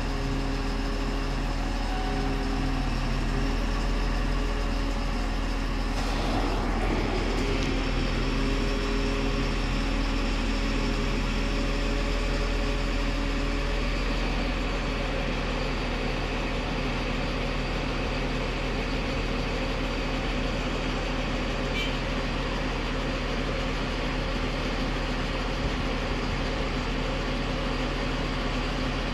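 Mobile crane's diesel engine running steadily while it holds a steel silo section on the hook, a low drone.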